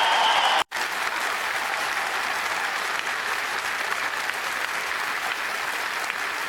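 AI-generated sound effect played back: a steady, even rushing noise that cuts out for an instant about half a second in and then starts again.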